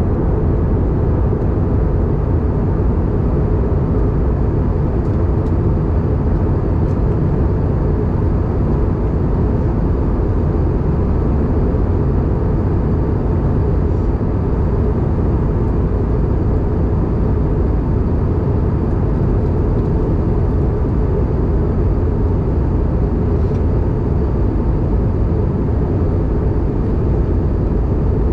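Airbus A320 cabin noise in flight, heard at a window seat over the wing: a loud, steady, low rumble of the engines and rushing air, with a faint steady hum above it.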